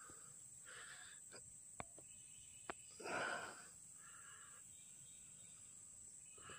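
Quiet background with a steady faint high hiss, broken about three seconds in by one breathy exhale close to the microphone. Two faint clicks come before it.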